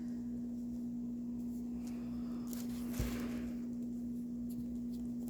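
Rustling and a soft thump of hands working a doll's stuffed cloth body into its vinyl torso, the rustle swelling briefly about three seconds in. A steady low hum runs underneath.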